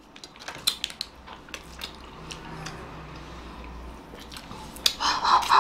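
Quiet eating sounds: scattered small clicks and taps of a wooden spoon in a paper ice cream cup, and mouth sounds of eating ice cream bars, with a brief low hum about halfway through. A voice breaks in near the end.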